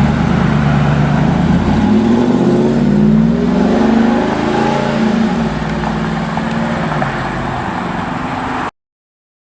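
A 2002 Ford SVT Lightning's supercharged 5.4-litre V8 running, its pitch climbing from about two seconds in and easing back down a couple of seconds later. The sound cuts off abruptly near the end.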